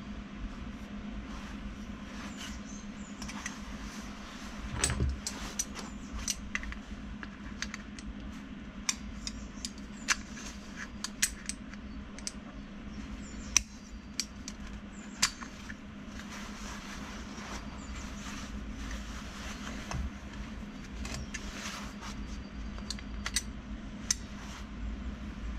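Scattered sharp metallic clicks and clinks of locking pliers being handled and worked on small metal parts, over a steady low hum.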